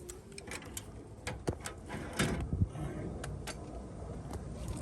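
Scattered clicks and knocks of hand tools and metal parts as a mounting is worked loose and removed from a car's engine bay.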